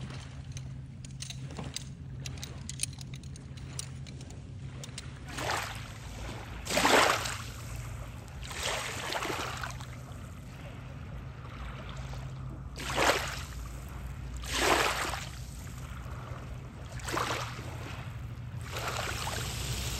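Small lake waves washing in at irregular intervals, each wash swelling and fading over about a second, over a steady low hum.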